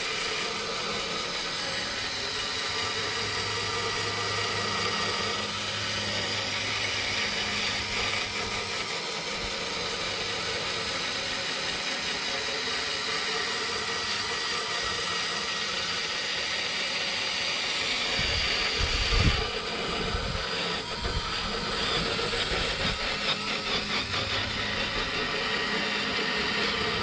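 Cordless DeWalt drill spinning a wire wheel brush against a rusty metal shaft on a lawn mower transmission, scouring the rust off to make it smooth. The drill runs steadily, with a few knocks about two-thirds through.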